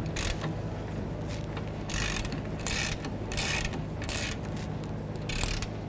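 Hand ratchet clicking in about six short runs as the 17 mm bolt of the rear shock's lower mount is run down against a wrench on the nut.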